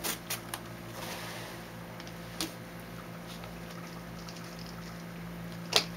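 Light handling noises from moving a cardboard box and a cloth sheet with plastic tubing: a few soft taps and clicks, the sharpest near the end, over a steady low hum.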